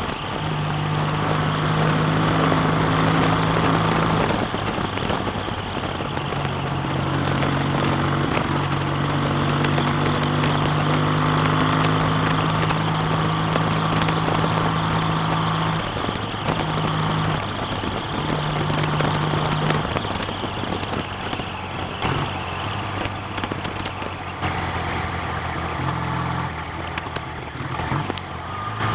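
BSA A65 650 cc parallel-twin motorcycle engine running under way, heard over a heavy rush of wind noise. The engine's steady note breaks off and shifts pitch several times as the revs change.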